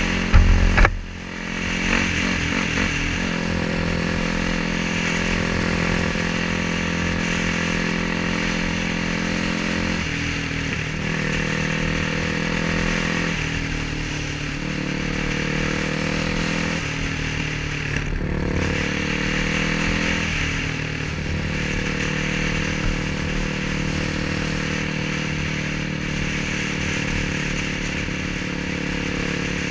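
Yamaha WR426F's single-cylinder four-stroke engine running under way on the street, its note rising and falling several times between about ten and twenty seconds in as the throttle is worked. A brief loud low thump about a second in.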